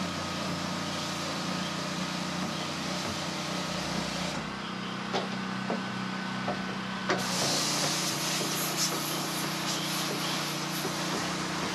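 Wheelie bin being pressure-washed on a bin-cleaning trailer: the engine and pump run with a steady hum under the hiss of water spraying. The spray eases off about four and a half seconds in and comes back harder about seven seconds in.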